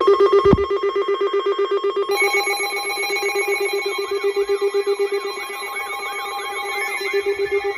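Several electronic alert tones sounding at once: a loud, rapidly pulsing buzz-like tone, joined about two seconds in by steady high-pitched tones, with a fast warbling tone partway through.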